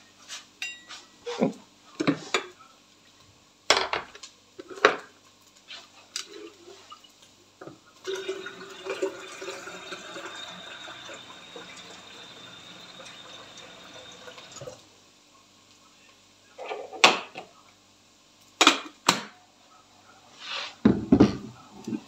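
Tap water running into an electric kettle, a steady rush for about six seconds starting about eight seconds in, with scattered knocks and clatter of handling before and after.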